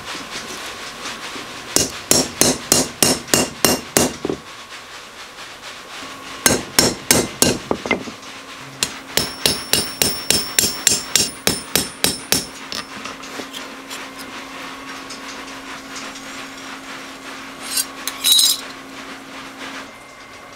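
Small hammer tapping a steel kitchen knife blade on a metal block, in three runs of quick blows at about four a second, the last run with a high metallic ring: a sharpener correcting the blade's warp before grinding.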